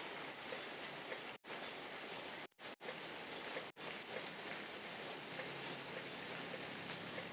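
Steady rain falling on leafy foliage, an even hiss that cuts out for an instant a few times. A faint low hum joins about five seconds in.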